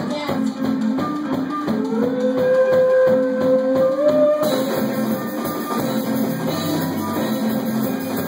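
Rock band playing live: electric guitars, bass guitar and drum kit. About two seconds in, a long note slides up and is held for a couple of seconds, and the band sounds brighter and fuller from about halfway through.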